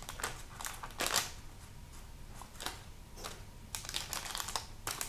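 Faint, irregular clicks and paper crinkles as baked, batter-coated cauliflower pieces are picked up and turned over by hand on a parchment-lined metal baking tray.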